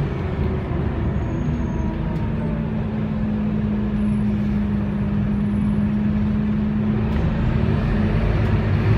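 Scania K280UB city bus heard from inside the cabin while under way: its 9.3-litre five-cylinder diesel rumbles, with a steady hum through the middle.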